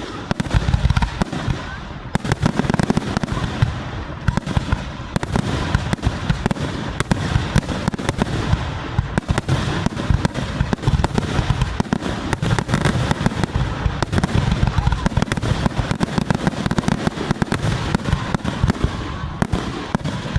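Fireworks display going off in a dense, continuous barrage of rapid crackling and booming reports, many bangs a second with no let-up.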